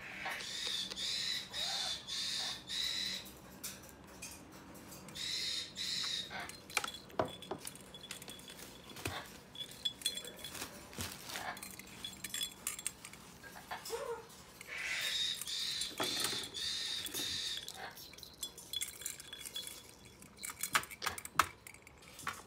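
Yellow-crowned Amazon parrot chicks giving high, rapidly pulsing begging calls while being syringe-fed, in three long bouts: at the start, about five seconds in, and about fifteen seconds in. Between the bouts, sharp clinks of metal bracelets and charms, thickest near the end.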